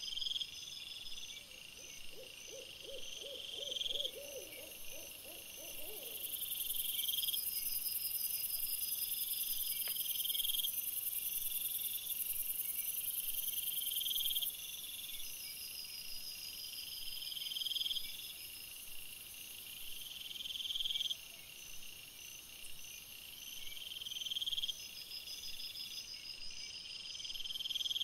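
Night chorus of singing insects: high buzzing trills that repeat about every two seconds over steady high chirping. A short run of rapid low pulses sounds a few seconds in.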